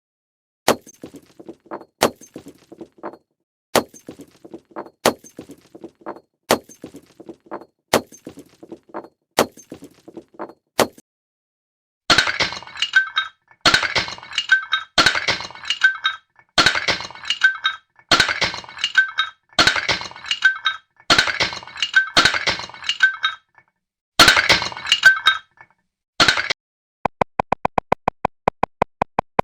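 Animation sound effects of breaking and clinking. First comes a sharp click about every second and a half, each followed by a short crackle. About twelve seconds in, louder crunching, clinking bursts start at the same spacing. Near the end, a fast run of electronic ticks plays over a steady tone.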